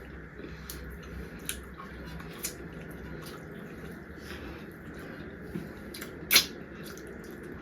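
Wet mouth clicks and lip smacks of people eating, with a few sharp clicks and the loudest one about six seconds in.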